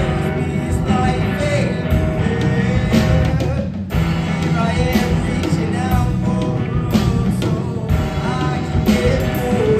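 Live rock band playing: drum kit, electric guitar, electric bass and keyboard, with a momentary break in the music just before four seconds in.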